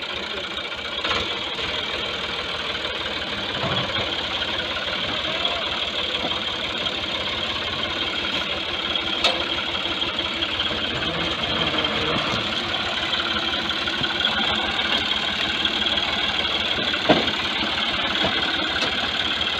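Ford 4560 tractor's three-cylinder diesel engine running steadily under load as it hauls a loaded trailer slowly over a field bank.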